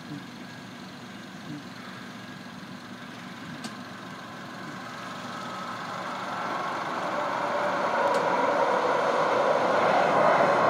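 TriMet MAX light rail train approaching and passing a grade crossing. Its rolling noise builds steadily from about halfway through and is loud near the end.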